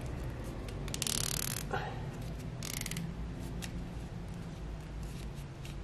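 Handling noise as a small piece of leather is worked in the fingers: two brief rustling scrapes, about a second in and near three seconds, over a low steady hiss, with a few faint ticks.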